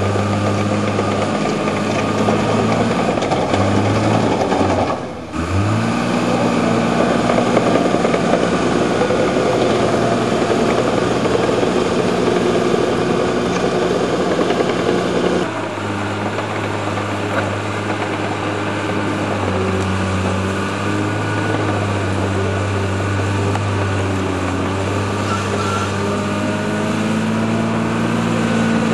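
Crawler bulldozer's diesel engine running steadily as the dozer pushes soil with its blade. About five seconds in, the engine briefly drops away and its note rises again.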